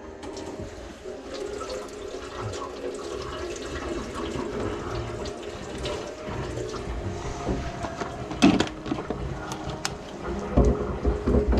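Water rushing and gurgling through a kitchen sink's drain pipes, with a few sharp clicks and low knocks near the end.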